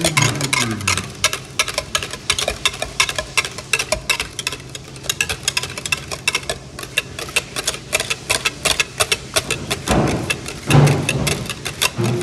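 A rapid run of sharp taps or knocks, several a second, with a low pitched hum or voice briefly near the start and again about ten seconds in.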